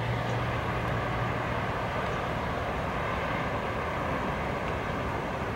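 Steady rumble of vehicles on the interstate, with a low engine hum that fades out about a second and a half in.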